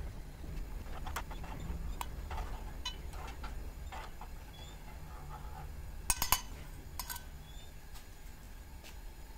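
A metal spoon stirring molten lead in a small steel crucible on a gas stove burner. Scattered light clinks and scrapes of metal on metal, with a louder cluster of clinks about six seconds in, over a steady low hum.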